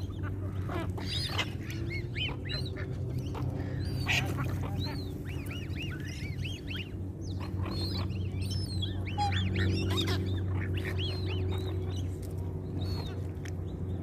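Waterbirds calling: a dense run of short, rising-and-falling calls one after another, over a steady low hum.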